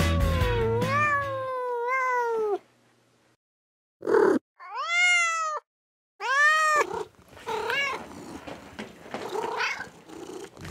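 Cat meows. A long, rising-then-falling meow comes about five seconds in, a shorter one about a second later, and then fainter meows. The first two and a half seconds are music with meows over it, and a brief loud noise comes just before the long meow.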